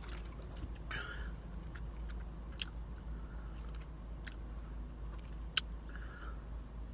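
Mouth sounds of a person who has just drunk from a plastic water bottle: swallowing, then a few sharp lip and tongue smacks spread a second or more apart.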